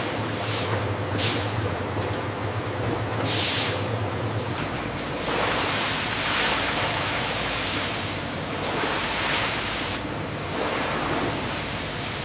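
Factory machinery running with a steady low hum and short bursts of hissing, like air or spray releases. From about five seconds in, a denser, louder rushing hiss takes over.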